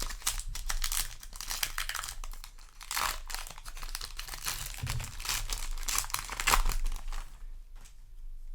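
Foil booster-pack wrapper crinkling and tearing as it is opened by hand, a dense crackle that dies down near the end.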